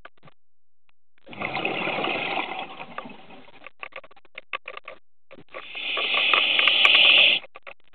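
A scuba diver's regulator breathing underwater: two breaths about four seconds apart, each a couple of seconds of rushing hiss and bubbling, with bubbles crackling between them.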